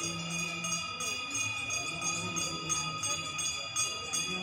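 Music with jingling bells striking at a steady beat over held drone-like tones.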